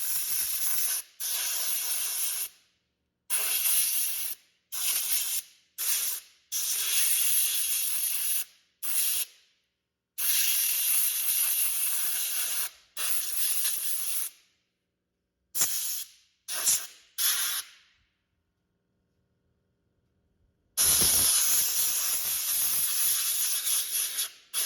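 Compressed air from an air compressor's blow gun hissing in about a dozen short blasts of varying length, blowing dust out of graphics cards and a motherboard, with a longer pause after about 18 seconds before one last long blast.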